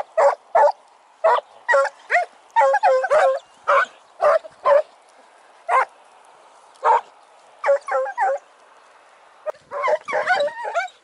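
A pack of hare-hunting hounds giving tongue as they work a hare's scent trail: a string of short barks and yelps, roughly one or two a second, with a quicker, overlapping run of yelps about ten seconds in.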